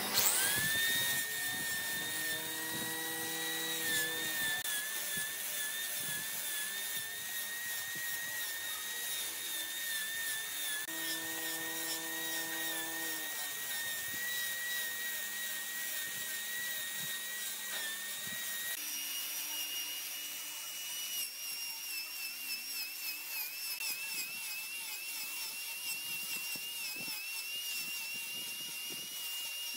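High-pitched whine of a power tool's electric motor. It spins up at the start, runs steadily, then shifts to a higher pitch about two-thirds of the way through.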